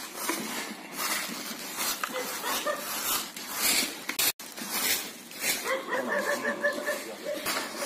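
Hand brooms sweeping dirt, leaves and litter on a rough lane, in repeated scraping strokes. In the second half, a quick run of short, high pitched calls is heard over the sweeping.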